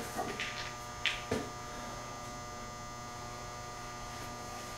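Steady electrical hum with several steady tones, and two faint clicks about a second in.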